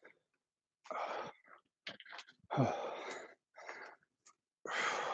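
A man's heavy, forceful breaths, exhaling hard about once a second, in time with resistance-band rows. One breath near the middle carries a short grunt.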